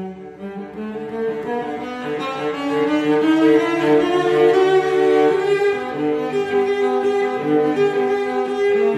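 Instrumental background music with long held notes, swelling louder over the first three seconds.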